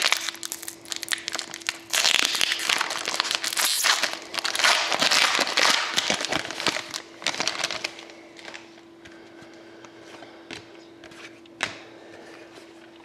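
Foil trading-card pack wrapper crinkling and tearing as it is torn open and the cards pulled out, dense for about eight seconds, then dying down to a few soft clicks of the cards being handled.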